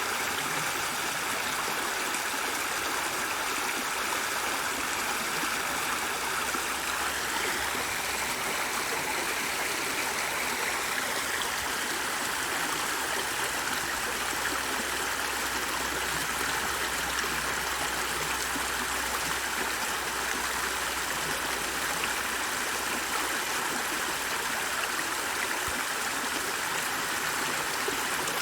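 A flowing stream: an even, steady rush of running water with no breaks.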